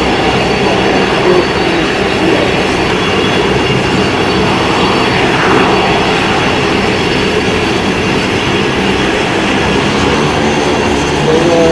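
Loud, steady engine drone with a hiss, holding an even level throughout.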